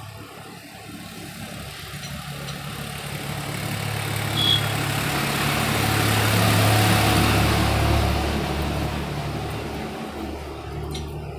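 A motor vehicle going past: engine noise swells to a peak about seven seconds in and fades away, over a steady low engine hum.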